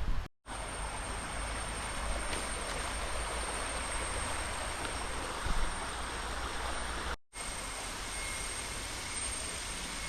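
Steady rushing noise of flowing river water with a low rumble of highway traffic underneath, broken off briefly twice, just after the start and about seven seconds in.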